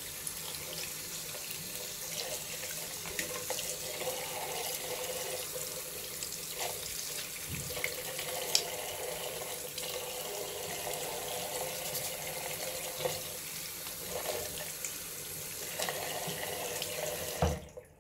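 Bathroom sink tap running steadily into the drain while a plastic pop-up drain stopper is rinsed under the stream, with small clicks of handling. Near the end there is a knock and the water stops.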